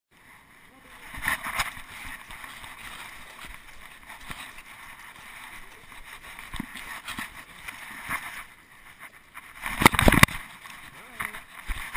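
Handling noise from a GoPro Hero 2 strapped to a moving dog: irregular rubbing, rustling and small knocks as the dog turns and moves. About ten seconds in there is a loud burst of knocking and scraping as the camera is jolted.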